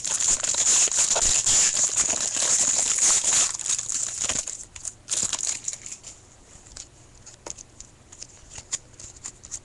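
Panini Certified hockey card pack being torn open, its wrapper crinkling loudly for about four and a half seconds, then quieter rustling and light clicks as the cards are handled.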